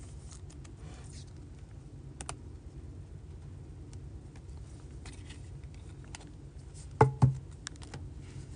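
Light clicks and rustling of plastic as a trading card in a soft penny sleeve is slid into a rigid plastic toploader and handled. A brief, louder double knock comes about seven seconds in.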